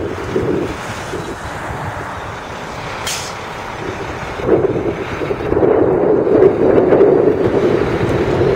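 Articulated city bus moving past, its engine drone growing louder about halfway through. A brief hiss of air about three seconds in.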